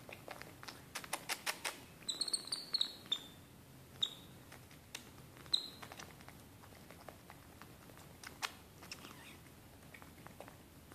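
Several short, high-pitched animal squeaks between about two and six seconds in, over a run of quick soft clicks near the start and a few scattered clicks later.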